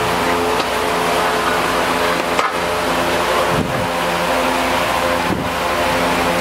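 A steady mechanical drone at one constant pitch, like a motor or engine running, with three brief dropouts.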